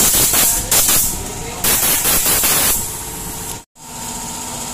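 Compressed-air blow gun hissing in three loud blasts, blowing dust off a scooter's CVT clutch assembly; the last blast ends a little before three seconds in.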